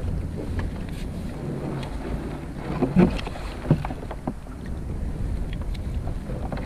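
Steady wind rumble on the microphone, with a few sharp knocks and rustles about halfway through as a crab pot's line is hauled in by hand over the side of a kayak.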